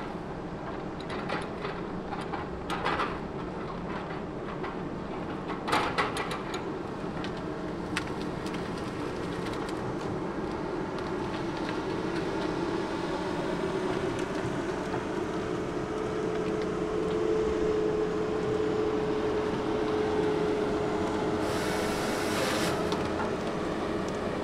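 Diesel engine of a tracked Tigercat log loader running, with knocks and cracks of logs being gripped and dropped in the first six seconds, the loudest just before the six-second mark. The engine drone then grows with a steady tone, and a burst of hiss about a second long comes near the end.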